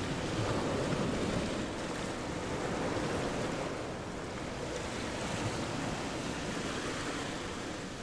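A steady rushing noise with no clear tone, swelling and easing slightly.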